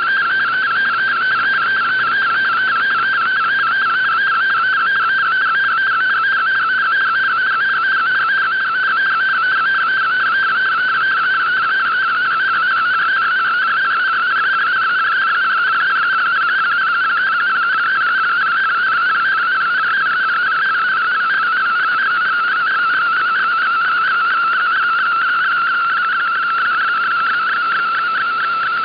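Shortwave digital-mode picture transmission (MFSK picture data) received on a radio: a steady, fast-warbling tone around the middle of the audio band over a hiss of band noise, as an image is being sent.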